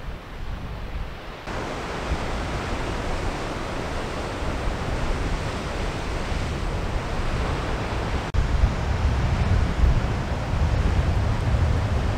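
Ocean surf washing against the foot of sea cliffs, a steady rushing noise. Wind buffets the microphone as a gusty low rumble that gets heavier from about eight seconds in.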